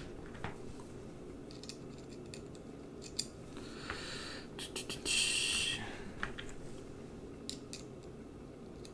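Small metal screwdriver bits clicking and rattling as they are picked through in a plastic bit case, with a louder scraping rattle about five seconds in.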